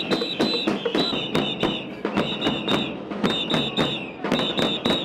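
Many bass drums pounded with mallets all at once, a dense loose beat of hits coming several times a second. Shrill high notes in short repeated bursts ring out above the drumming.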